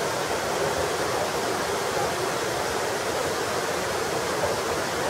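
Torc Waterfall, an 18-metre cascade, rushing steadily: an even, unbroken noise of falling water.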